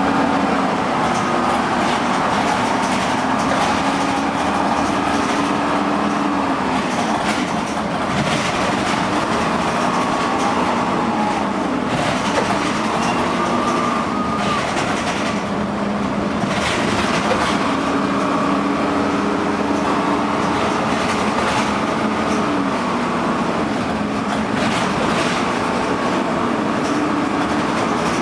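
Dennis Dart SLF single-deck bus running with its engine cooling fan on: a loud, steady fan and engine noise, with the engine note slowly rising and falling.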